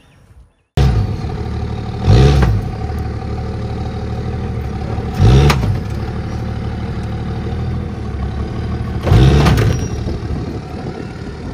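Pickup truck engine running under load as it pushes a dead car, with three surges of revs a few seconds apart, each rising and falling in pitch.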